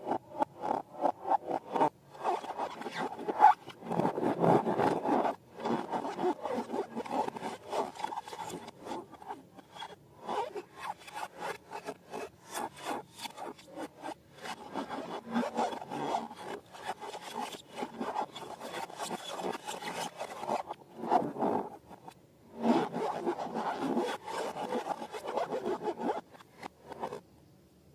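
Slime being squished, stretched and mixed by hand: a fast, wet run of clicks and crackles in stretches with brief pauses, stopping shortly before the end.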